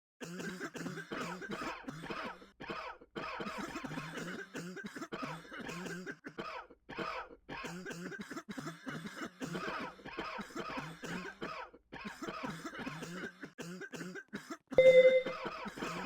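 A person coughing over and over in a long fit, with short breaks between bursts. About a second before the end, a brief loud tone cuts in.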